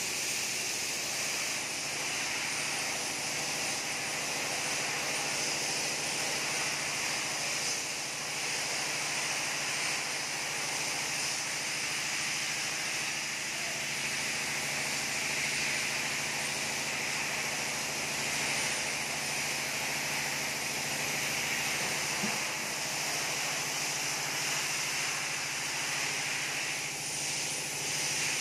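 Paint spray gun hissing steadily as it sprays paint onto steel frames, over a steady low hum.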